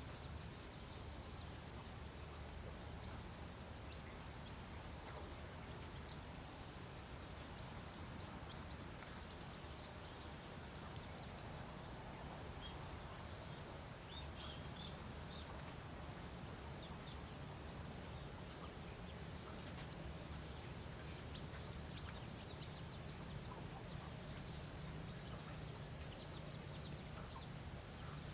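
Faint outdoor background noise: a steady low hum and a steady high hiss, with scattered faint ticks or chirps.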